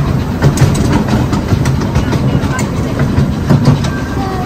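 10¼-inch gauge miniature steam train running along its track: a steady low rumble with irregular clicks and knocks from the wheels on the rails.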